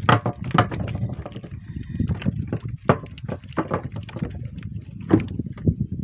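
Handling noise in a small boat: irregular knocks and taps, sharpest right at the start and about five seconds in, over a steady low wash of water against the hull, as a small fish is taken off the hook.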